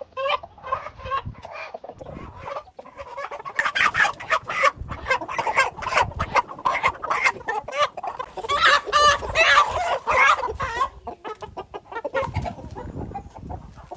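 A flock of chickens clucking and squawking, many calls overlapping, in alarm as they are caught and handled for sale. The loudest, shrillest squawking comes about nine to ten seconds in.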